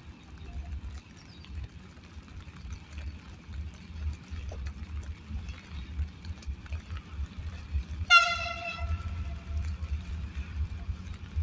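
Medway 4700-class diesel locomotive sounding one short horn blast about eight seconds in, the note trailing off over about a second, as it approaches. A steady low rumble runs underneath.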